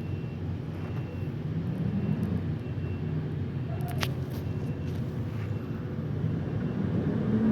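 Diesel engine of a garbage truck running steadily, its pitch rising and falling slightly, with a single sharp click about four seconds in.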